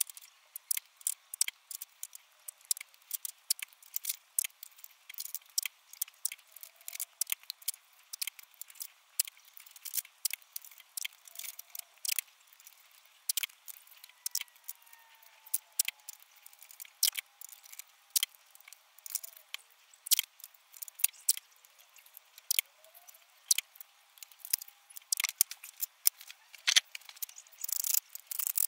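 Masking tape being torn off into short strips and pressed onto a steel bracket: a steady run of sharp crackles and ticks, several a second, thickening into a denser flurry near the end.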